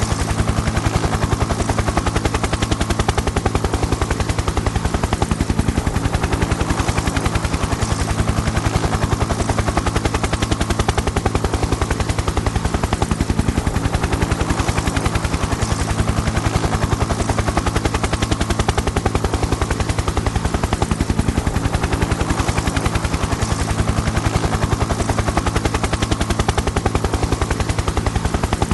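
Helicopter rotor blades chopping in a fast, even beat over a steady engine hum, holding constant with no pass-by rise or fall.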